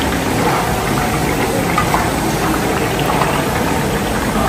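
Gram-flour sev frying in hot oil in a large iron wok: a steady sizzle with small scattered crackles over a steady low rumble.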